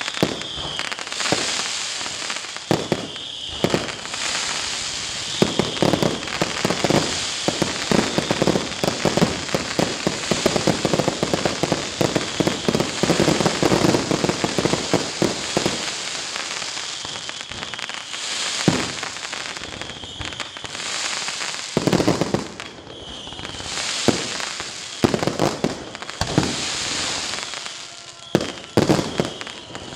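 Aerial fireworks display: a rapid string of bangs from bursting shells over continuous crackling stars. The barrage is densest through the middle, then thins to scattered loud bangs toward the end.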